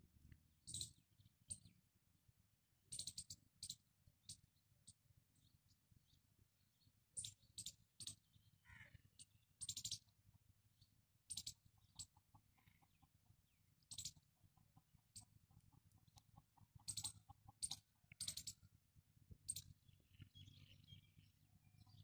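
Very quiet, broken by scattered sharp clicks, a second or so apart. About halfway through, and again near three quarters, a faint call of rapid, evenly spaced pulses runs for a second or two.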